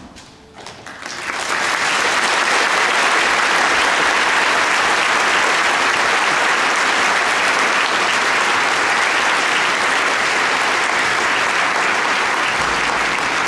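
Audience applauding, swelling up over the first second or so into loud, steady clapping.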